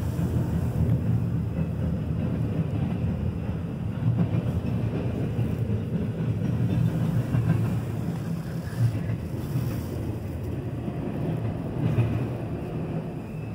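Freight train rolling past a grade crossing, led by a CN diesel locomotive and followed by autorack freight cars: a steady low rumble, heard from inside a car.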